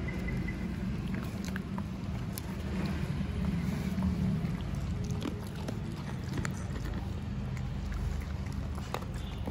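Puppies crunching and chewing dry kibble, with scattered sharp clicks of teeth on the pellets, over a steady low rumble.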